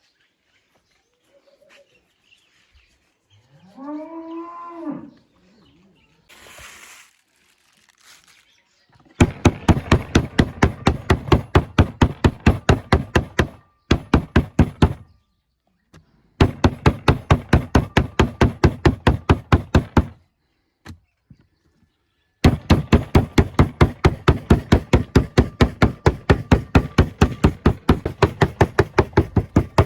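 A cow moos once, about four seconds in. From about nine seconds on, a knife chops rapidly and evenly on a cutting board, in several long runs with short pauses between them.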